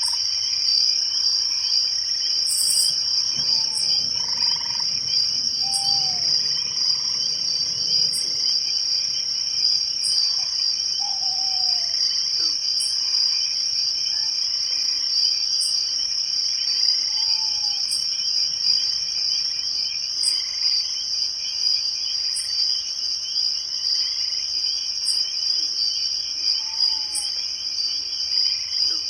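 Night forest chorus of crickets and other insects: a loud, unbroken high trill, with a short, very high chirp repeating about every two seconds. Now and then a short call falling in pitch sounds lower down, from another animal.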